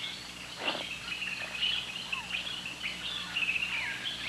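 Jungle birds chirping, a busy chorus of short high chirps and quick pitch-sliding calls over a faint steady hum.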